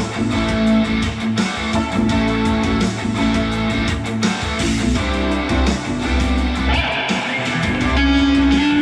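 Electric guitar played through an amplifier: a run of sustained, overlapping notes and chords.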